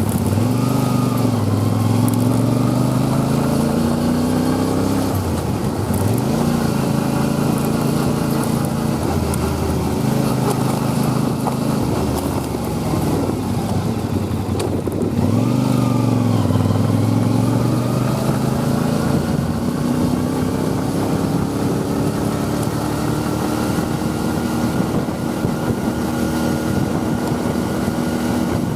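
Motorcycle engine under way, revving up and dropping in pitch at each gear change several times in the first half, then pulling steadily with a slowly rising pitch.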